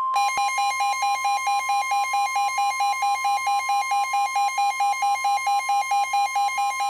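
Emergency alert attention signal for a severe thunderstorm warning: a loud, steady high tone with a harsh electronic beep pulsing over it about four times a second.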